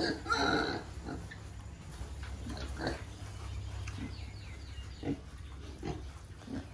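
Pen of two-month-old piglets calling: a loud, short squeal just after the start, then scattered short grunts.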